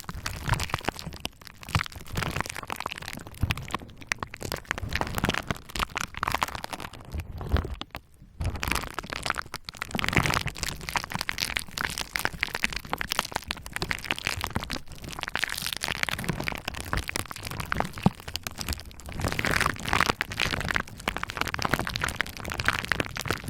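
Bubble wrap crackling and popping under a roller: dense, irregular crackles with swells of crinkling noise.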